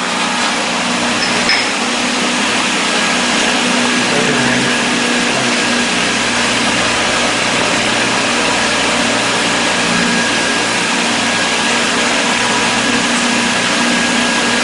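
Steady running noise of workshop machinery: an even hiss and hum with a faint steady whine, unchanging throughout.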